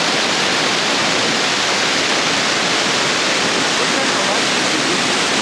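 Steady, loud rushing of falling or fast-flowing water, an even hiss-like roar with no pauses.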